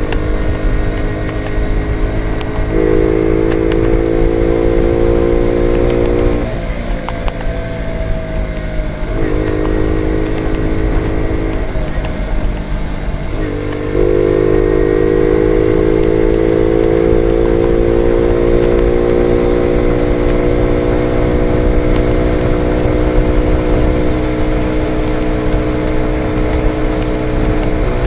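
Jawa Betka 50 moped engine running under way, heard from the rider's seat. Its note drops away twice in the first half, then comes back louder about halfway through and holds steady, its pitch slowly rising.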